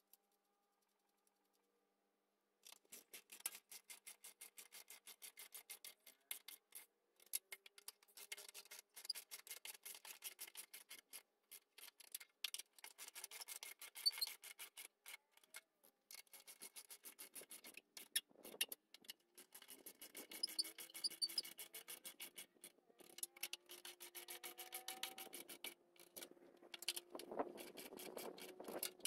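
Socket ratchet clicking in rapid runs with short pauses, faint, as nuts are run onto the car's front bumper reinforcement bracket; it starts a couple of seconds in.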